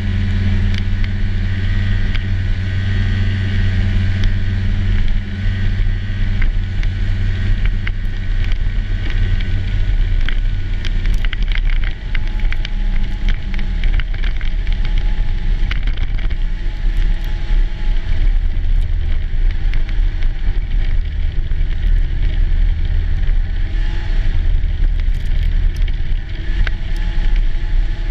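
Snowmobile engine running steadily as the sled travels at speed, its note shifting about ten seconds in.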